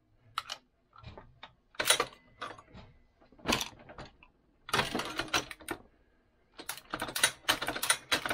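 Clicks and clatter of a Hornady 366 shotshell press and a 12-gauge hull being worked by hand: a few separate sharp knocks, then a quick run of rattling clicks over the last two seconds.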